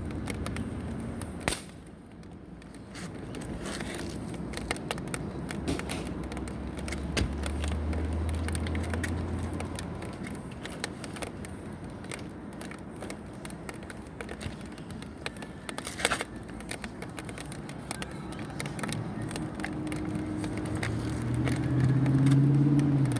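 Two sharp air-gun shots about fourteen seconds apart, over a steady crackling background. A low hum rises and fades midway.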